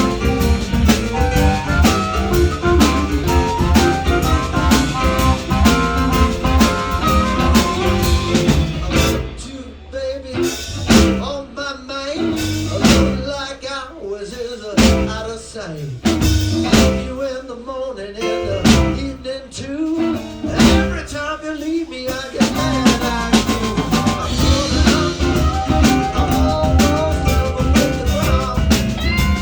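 A live blues band with electric guitar, bass and drum kit plays an instrumental section. From about ten seconds in the band drops to sparse stop-time hits with gaps between them. About twenty-two seconds in, the full band comes back in.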